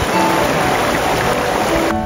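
Rushing water of a rocky mountain stream, a steady splashing hiss, under background music with a few sparse held notes.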